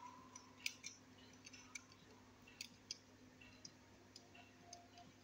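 Faint, scattered clicks and light taps from a fishing match barrow's wheel and metal frame being fitted and hand-tightened, about a dozen at uneven intervals over a low steady hum.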